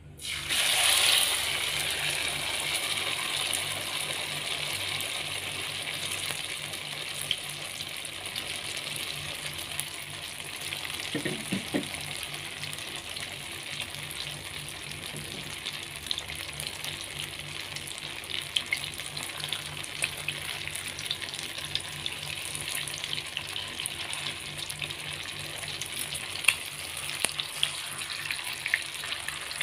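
Tofu cubes in beaten egg poured into hot cooking oil in a wok: a loud sizzle bursts up as the mixture hits the oil, then settles into a steady crackling fry with scattered pops.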